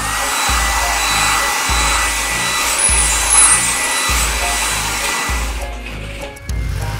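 Cartoon car-wash machine sound effect: a steady whirring hiss with a thin high whine, stopping near the end, over background music with a bouncing bass beat.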